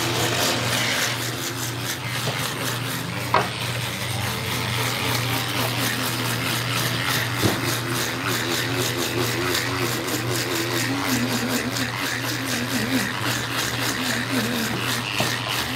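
Electric fish scaler running with a steady motor hum as its spinning metal head is worked along a whole salmon, with a scratchy rasp of scales being stripped off. A couple of sharp knocks come about three and a half and seven and a half seconds in.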